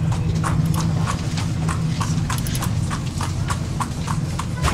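Horse hooves clip-clopping on hard ground at an even pace, about four hoof strikes a second, over a steady low rumble.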